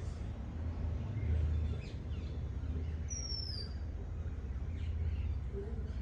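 A bird's thin, high whistle falling in pitch, once about three seconds in, over a steady low rumble.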